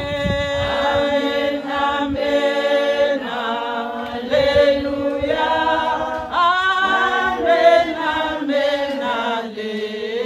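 A group of women singing together unaccompanied, their voices holding long notes, with a steady lower part held beneath a moving melody.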